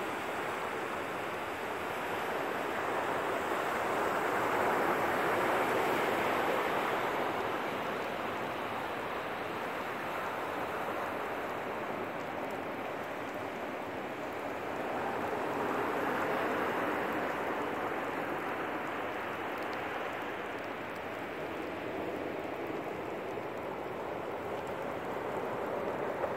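Ocean surf rushing steadily onto the beach, swelling twice, about ten seconds apart.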